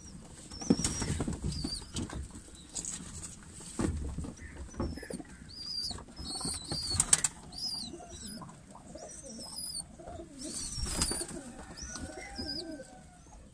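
Domestic pigeons cooing and flapping their wings in sudden bursts, with many short, high chirps repeating throughout.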